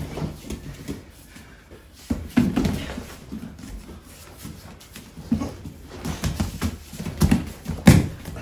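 Two grapplers in gis struggling for a takedown on foam mats: bare feet stamping and shuffling, bodies and grips thudding together, with effortful grunts and breaths. The thuds come irregularly, and a heavy thump near the end is the loudest.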